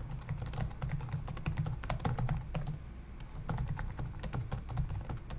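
Typing on a computer keyboard: a quick, uneven run of keystrokes, over a low steady hum.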